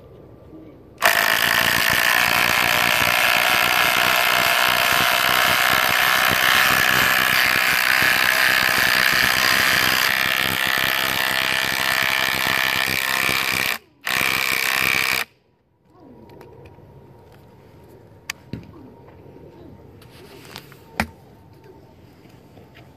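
Cordless impact tools, a Milwaukee 2753 Fuel impact driver and a Bosch IWBH182 impact wrench, hammering lag bolts down into a wooden board with a loud, continuous rattle of impacts. The rattle stops about 14 seconds in, comes back for about a second and a half, then cuts off. After that only a few light clicks remain.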